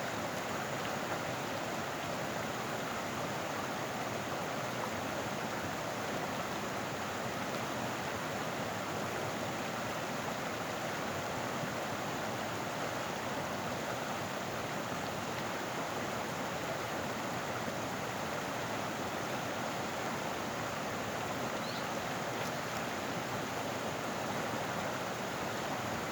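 Steady rush of flowing stream water, an even noise that holds constant throughout.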